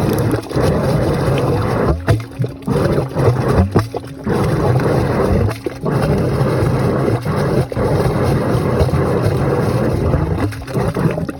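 Dryer exhaust air forcing its way through water trapped in the dryer vent duct: an irregular rushing and gurgling that drops out briefly several times. The sound is the sign of water standing in the vent line, which blocks the airflow.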